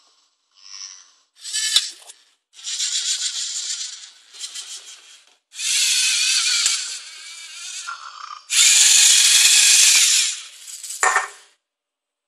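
Lego Mindstorms NXT servo motors whirring through their plastic gear trains as the tracked robot drives and works its can-gripping arm. They run in about six stop-start bursts of one to two seconds each, the longest and loudest about two-thirds of the way through, with a sharp click near the end.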